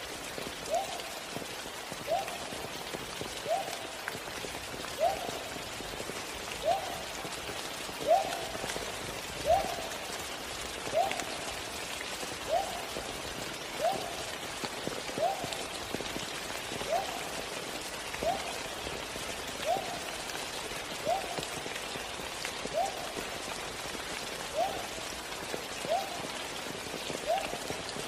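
Steady rain, with a short call that rises in pitch and repeats about every one and a half seconds over it.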